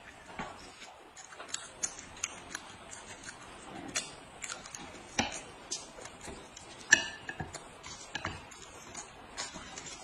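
Eating with chopsticks: irregular small clicks and taps from chewing and from chopsticks against a plate and a paper cup, with a few sharper clicks among them.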